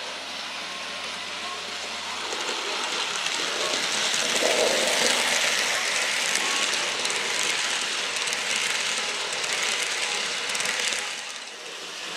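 Model train, a locomotive hauling a long rake of passenger coaches, rolling over the track and turnouts: a steady rattling hiss of wheels on rail. It grows louder from about two seconds in as the train passes close, and drops away about a second before the end.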